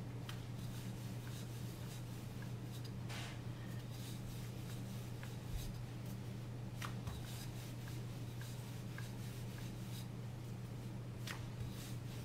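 Faint scuffing, rubbing and light taps of hands and a wooden rolling pin working floured dough on a marble board, over a steady low hum.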